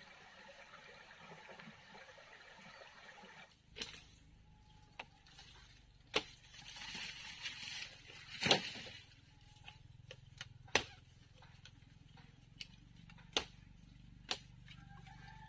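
A series of sharp knocks or chops, about seven of them at irregular gaps a second or more apart, over faint outdoor background.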